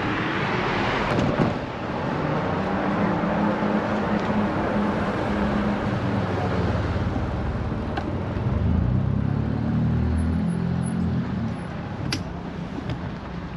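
Street traffic noise: motor vehicles running past, one heavier engine rumble swelling a little over halfway through, under a steady rush of road and air noise.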